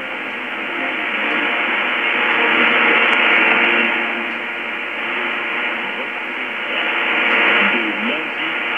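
Shortwave AM broadcast on 9580 kHz through a Lowe HF-235 communications receiver: a weak, muffled signal buried in hiss and static, with faint programme audio underneath. The hiss swells and fades twice, about three and seven seconds in, as the signal fades.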